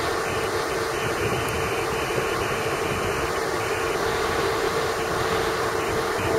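Steady rumble of a CSX diesel freight train with its locomotive hauling an auto-rack train past at a distance.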